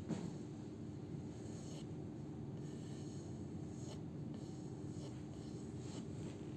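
Graphite pencil sketching on a white-primed wooden icon board: several short, light scratching strokes, a second or two apart.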